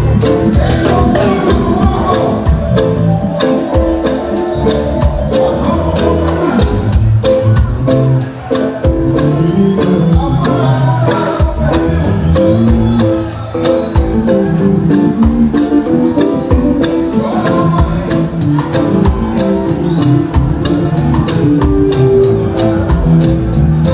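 Live reggae band playing with keyboards, electric guitar and drums over a steady beat.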